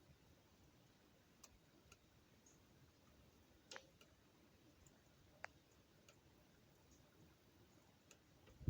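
Near silence: faint room tone with a few scattered, isolated clicks.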